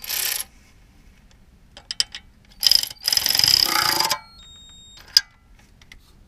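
Ratchet wrench and socket on a nut, metal clinking and clicking in short bursts. The longest run of clicking comes about three seconds in and lasts about a second.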